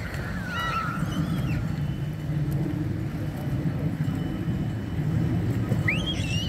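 Steady low rumble of road traffic, with a few short high-pitched cries about a second in and again near the end.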